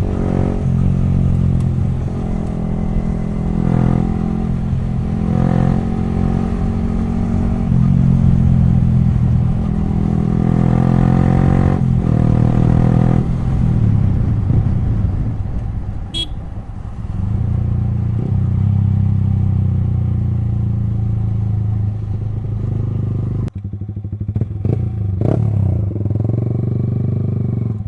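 Yamaha R15 V3's single-cylinder engine running loud through an exhaust with its dB killers removed as the bike is ridden, the engine note shifting as the revs change. It gives a few sharp cracks near the end.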